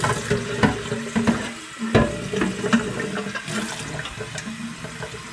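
Tap water running into and over the stainless steel tank of a gravity water filter as it is rinsed under a kitchen faucet, with scattered knocks of the metal tank, the sharpest about two seconds in.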